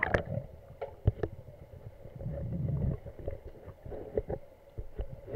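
Underwater sound through an action camera submerged in a diving pool: scattered sharp clicks and knocks, a low rumble about two seconds in, and a faint steady hum.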